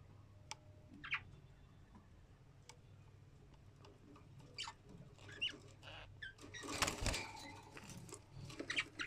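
Budgerigars chirping briefly among small clicks, then scratching and rustling that get busier in the second half, loudest about seven seconds in, over a steady low hum.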